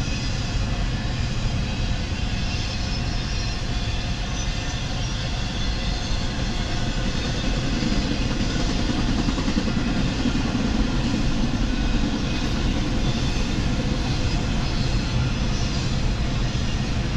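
Steady hum and noise inside a stationary car's cabin, heaviest in the low end, with no sudden sounds.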